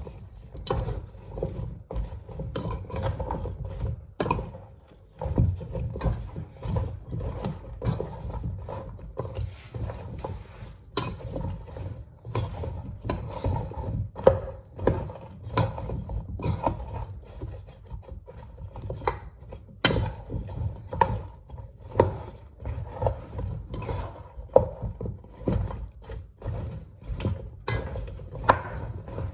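Sliced sweet potatoes being mixed with olive oil and spices in a bowl: an irregular run of knocks, clicks and clatter.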